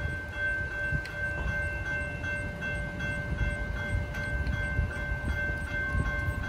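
Railroad crossing bells ringing with an even, rapid ding about two to three times a second while the crossing gates lower, warning of an approaching train.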